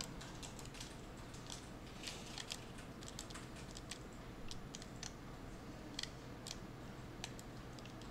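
Faint, irregular clicks of a computer mouse and keyboard, a dozen or more scattered through, over a low steady hum.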